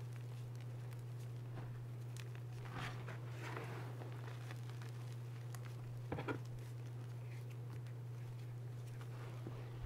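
Fingers pressing and sifting through crushed gym chalk powder, giving a few soft, scattered crunches, the clearest about six seconds in. A steady low hum runs underneath.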